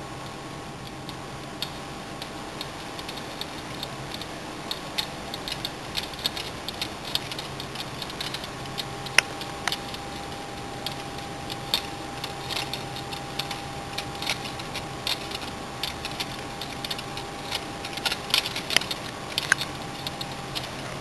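Light, irregular wooden clicking and tapping from a jointed balsa wood pterosaur model, its wings knocking as the string is pulled to flap them. The clicks get busier near the end, over a steady low hum.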